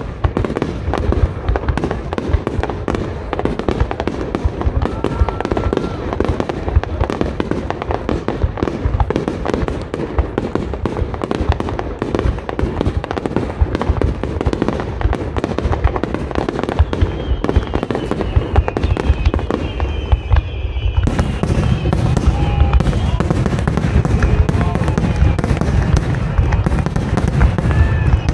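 Fireworks finale: a dense, continuous barrage of aerial shells bursting, many overlapping bangs a second. About three quarters of the way through the low rumble grows heavier as the barrage thickens.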